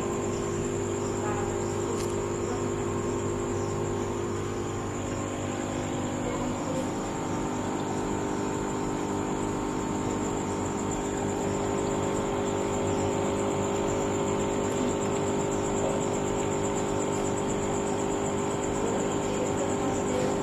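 Aquarium air pump and filter running: a steady electric hum with a thin high whine over a constant bubbling hiss.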